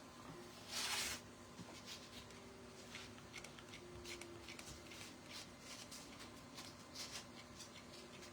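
Faint rustling and light clicking of hands handling craft materials, with one louder, brief rustle about a second in.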